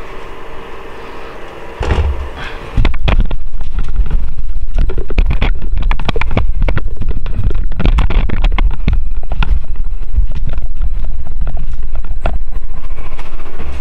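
Loud low rumbling and knocking of handling noise on a handheld camera's microphone, starting suddenly about three seconds in as the camera is moved.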